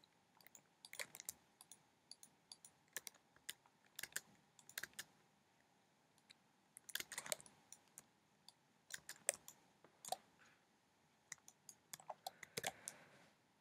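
Faint computer keyboard keystrokes and mouse clicks, coming irregularly in small clusters with short pauses between.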